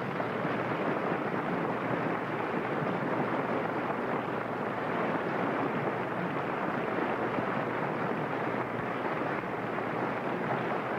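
Steady, even rushing noise with no speech or music.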